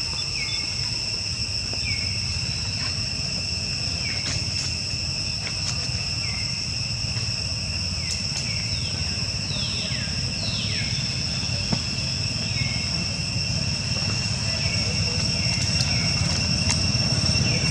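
Steady insect chorus of high, unbroken buzzing tones, with short falling chirps repeating every second or two and a few longer falling sweeps about halfway through, over a low rumble.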